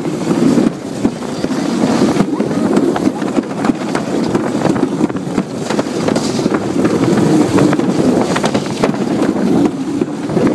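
Alpine slide sled running down its track: a steady rumble with many small knocks, with wind buffeting the microphone.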